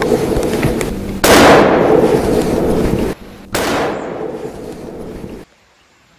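Loud explosion-like blasts, one about a second in and another about three and a half seconds in, each dying away over a couple of seconds, with the tail of an earlier blast at the start. The sound cuts off suddenly about five and a half seconds in, leaving faint hiss.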